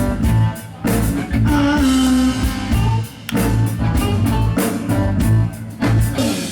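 Live band playing a funky rock number: guitar over bass and drums, with a steady run of drum hits.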